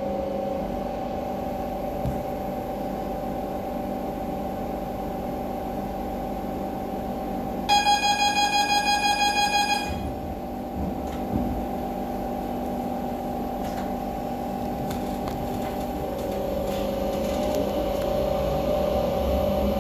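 Inside a Renfe Cercanías electric commuter train standing at a platform: a steady hum from the train's equipment. About eight seconds in, a rapid series of beeps, about five a second for two seconds, the door-closing warning, followed by a knock as the doors shut. Near the end a rising whine from the electric traction motors as the train pulls away.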